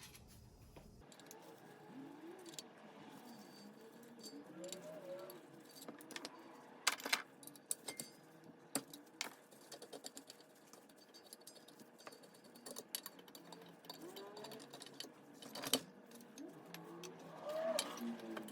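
Faint hand-tool work on espresso machine parts: scattered metallic clicks and clinks of screws and a screwdriver as the heat exchanger top plate is unscrewed, with a few sharper clicks and some faint squeaks.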